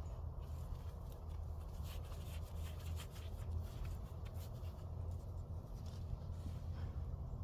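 Soil being dug through by hand: scratchy rustling and scraping with many small crackles, over a steady low rumble.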